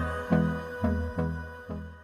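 Outro music with a steady beat of about two strokes a second, fading out toward the end.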